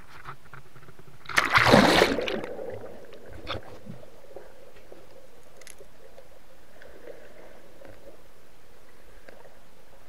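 Underwater water noise heard through a submerged camera: one loud rushing, bubbling burst about a second and a half in that fades within a second, then a short click and a steady hiss.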